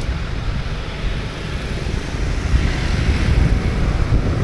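Street traffic, motorbikes and cars passing, with wind buffeting the microphone in a heavy low rumble. The traffic noise swells a little about halfway through.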